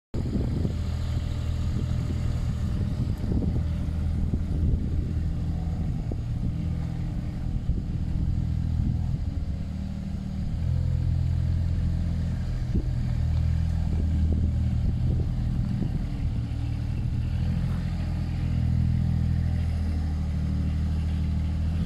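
Thwaites site dumper's diesel engine running as the dumper drives along, its engine speed shifting a little about halfway through.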